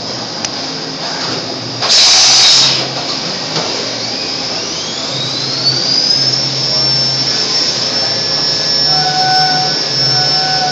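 XR1000 milling machine's spindle running at 9000 rpm with a high steady whine while a half-inch five-flute carbide end mill cuts aluminium. There is a short loud hiss about two seconds in and a whine rising in pitch around the middle. From about nine seconds in, the cut comes in short repeated bursts with a steady tone from the five flutes striking the metal.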